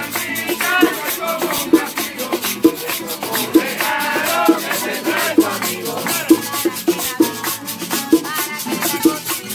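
Live Puerto Rican parranda music: a cuatro and guitar strummed over bongos and a güiro scraped in a fast, steady rhythm, with a young woman and the crowd singing along and clapping.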